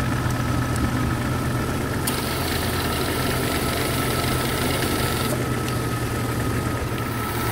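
Jeep Cherokee XJ engine idling steadily with the air conditioning on high, a low hum with a steady high whine over it. A hiss in the upper range grows louder from about two seconds in to about five seconds in.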